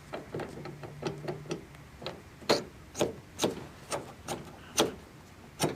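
Large bolt being tightened with a wrench to fix a massage chair's control arm in place. There are light taps at first, then from about two and a half seconds in a run of sharp metal clicks, about two a second.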